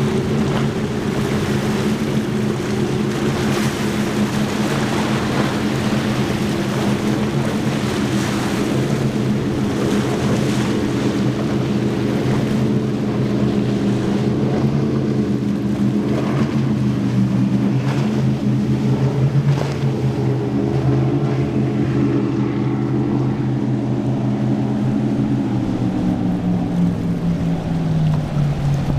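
Baja performance powerboat's engines running at speed, a steady deep drone with the hiss of spray and waves over it. The engine note falls in pitch near the end.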